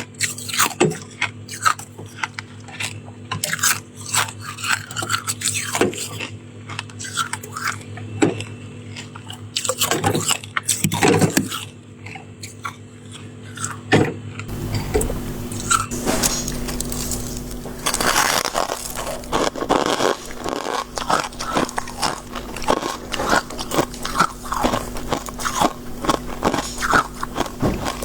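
Biting and chewing soft shaved freezer-frost ice: repeated crisp crunches, becoming denser and more continuous about halfway through.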